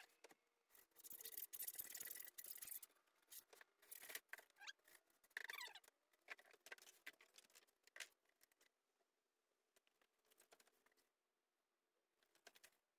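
Insulation knife cutting through a polyiso rigid foam insulation board: a few quiet scraping, squeaky cutting strokes with light knocks, mostly in the first half.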